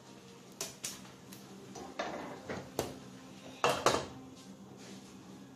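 Kitchenware clinking and clattering: a string of short knocks of utensils against pots and dishes, with the loudest clatter about four seconds in.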